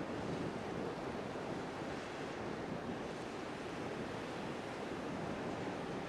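Steady wash of sea surf and wind, an even noise that holds level throughout.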